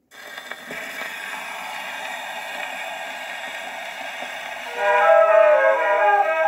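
Wind-up gramophone playing a 78 rpm shellac record: the needle goes down and the surface noise starts suddenly as a steady hiss and crackle, with a click under a second in. About five seconds in, the recorded music begins, louder.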